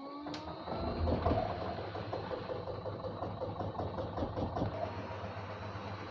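LG WD-1054FB front-loading washing machine running: a motor whine rising in pitch levels off with a click about half a second in, then the machine runs on steadily with a low hum.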